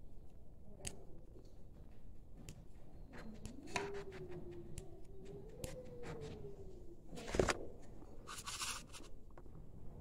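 Clicks and scrapes from handling a clear plastic tub of bird seed, with a sharp knock about seven seconds in and a short rustle just after it. A faint wavering tone rises and falls through the middle.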